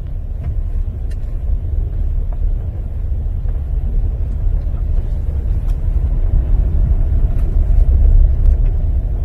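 Low, steady road rumble of a Chevrolet Colorado pickup driving over a rough forest road, with a few faint clicks. The clunking underbody rattle is gone: the leveled front end is quiet now that its tie rods have been replaced.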